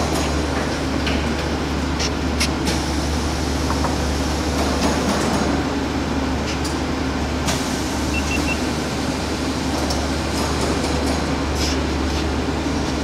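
Laser engraving machines running: a steady low hum and whir of machinery and air handling, with a few faint clicks scattered through.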